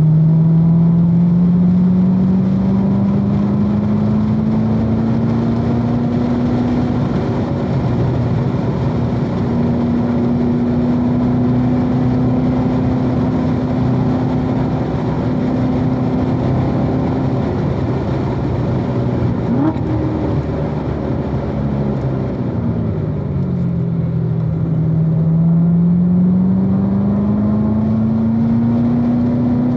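2016 Corvette Z06's supercharged 6.2-litre V8 at speed on a road course. The engine pulls up through the revs and holds them high for a long stretch, then drops away as the car slows for a corner before climbing again under hard acceleration.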